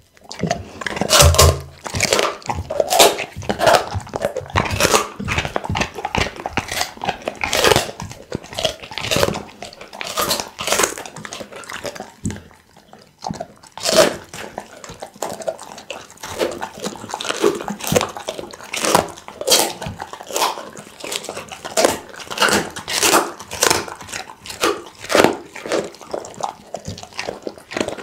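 Pit bull chewing raw meat and bone close to a microphone: a steady run of irregular bites and chews. Some are much louder than others, the loudest about a second in and again about halfway.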